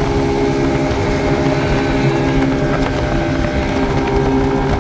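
Bass boat's outboard motor running steadily at speed, with water rushing past the hull and wind buffeting the microphone.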